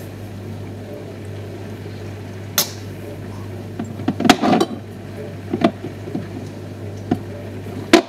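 Glass jars and containers knocking and clinking as someone rummages through a refrigerator's shelves: a handful of separate knocks, the loudest cluster about halfway through, over a steady low hum.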